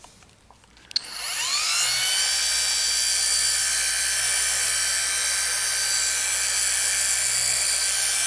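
Flex PXE 80 compact polisher with a one-inch pad switched on with a click about a second in, its motor whining up to speed within a second, then running at a steady high pitch.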